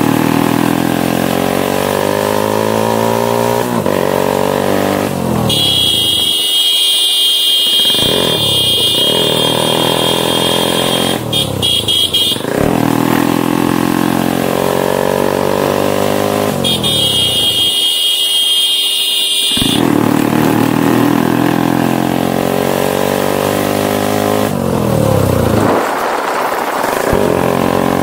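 Motorcycle engine accelerating hard, its pitch climbing through each gear and dropping at each shift, again and again. Twice a loud steady high-pitched tone cuts in over it, once for about six seconds and once for about three, and the low engine sound drops away while it lasts.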